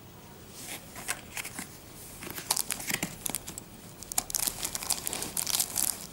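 Packaging being handled: the end flap of a cardboard box is opened and a mouse sealed in a plastic bag is pulled out, with irregular crinkling and rustling of the plastic and cardboard that grows busier about two seconds in.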